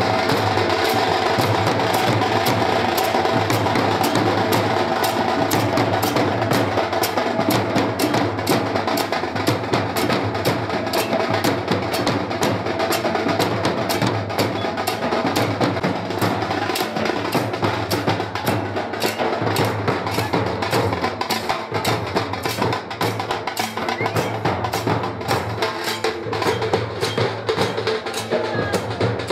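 Dhol barrel drums beaten in a fast, steady, unbroken rhythm of sharp strokes.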